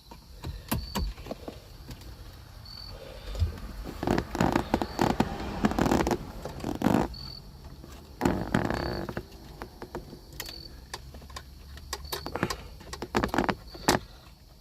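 Plastic clicks, rattles and rubbing from handling a car dash display screen and working the squeeze clips of its wiring harness connectors, busiest in the middle, with faint short high beeps now and then.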